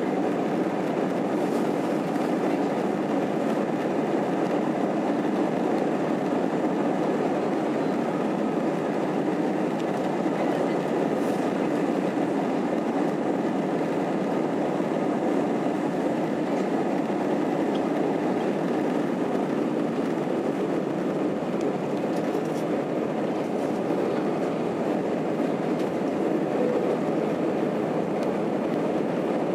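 Airbus A320's jet engines at takeoff thrust, heard inside the cabin over the wing, with the rumble of the takeoff roll: a steady, even noise that carries on unchanged as the aircraft lifts off.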